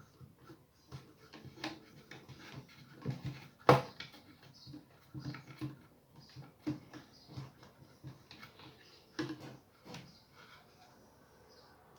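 Clicks, taps and knocks of hands and tools working on a subwoofer's plastic housing and parts during disassembly, with one sharp, louder knock about four seconds in.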